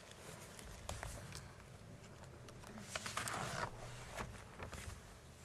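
People shuffling and rustling as the room settles: scattered clicks and knocks, with a denser patch of rustling about three seconds in.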